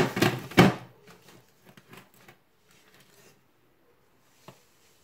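An upturned metal ring cake tin knocked twice sharply against a cake plate, then a few lighter taps and clatter as the tin is worked loose and lifted off the baked cake. A small click follows about four and a half seconds in.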